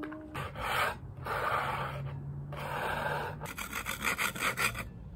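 Plastic scraper rubbing across an oiled glass pane to lift residue: three long strokes, then a run of quick short strokes.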